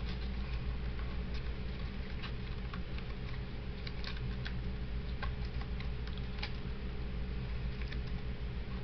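Scattered light clicks and crinkles of a small cardboard firework package being handled and turned over in the hands, over a steady low hum.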